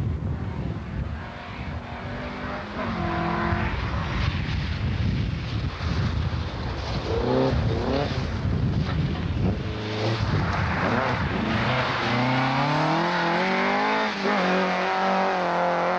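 Rally car engine revving hard through the gears on a gravel stage, its pitch climbing and dropping back several times as the car approaches and passes.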